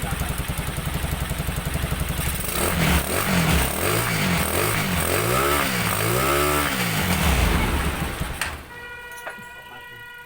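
Jialing 200cc motorcycle engine in a three-wheeler idling with a fast, even pulse, then revved up and down several times. Near the end the engine sound drops away and a steady high tone is left.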